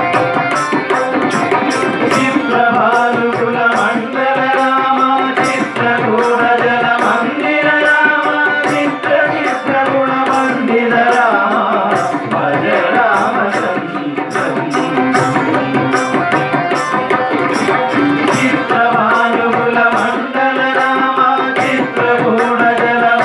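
Hindu devotional bhajan: voices singing to a harmonium's held chords, with tabla and mridangam playing a steady, busy rhythm.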